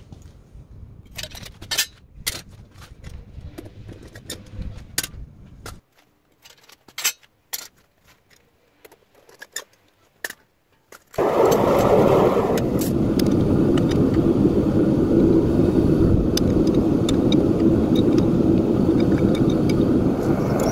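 A propane melting furnace's burner starts suddenly about halfway through and then runs with a loud, steady roar. Before that come scattered sharp metal clicks and clinks over a low rumble.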